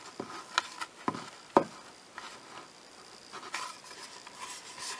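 Small sharp clicks and taps of fingers and a brass nut on a clock's plastic movement shaft and wooden face as the nut is hand-tightened, the loudest about a second and a half in. After that comes softer rubbing and handling noise as the clock is turned in the hands.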